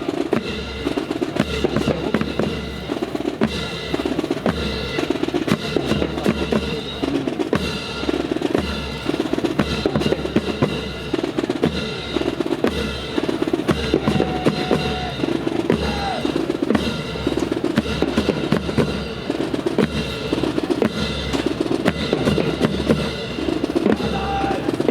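Marching drum corps playing a cadence on snare and bass drums, a steady repeating beat throughout.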